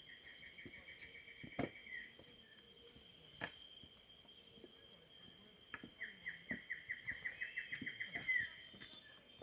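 A bird gives two rapid trills of evenly spaced notes: one short trill at the start, then a longer one from about six seconds in. Behind them runs a steady high whine, with a few sharp clicks scattered through.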